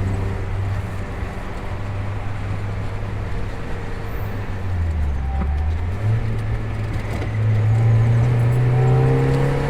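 1991 Mazda Miata's 1.6-litre four-cylinder engine running under way, heard from inside the cabin along with road noise. The engine note dips about five seconds in, then climbs in pitch and gets louder as the car pulls harder.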